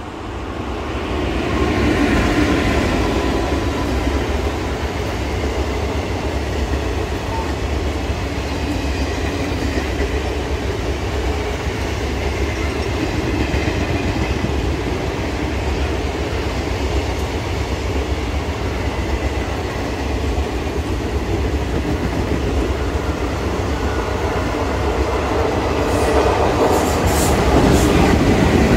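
A train running past on the line, its wheels rumbling and clattering over the rails. There are sharp clicks near the end.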